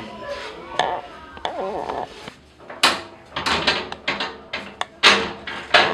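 Metal window frame rattling and banging as it is yanked and forced, in a run of sharp clattering knocks through the second half, after a brief voice.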